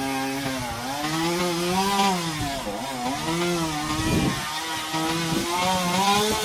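Chainsaw running and cutting wood, its engine pitch rising and dipping repeatedly as it revs and takes the load.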